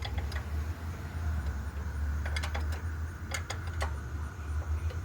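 Scattered light metal clicks and clinks of a tool and engine parts being handled on a Predator 212 engine's open valve train, over a steady low hum.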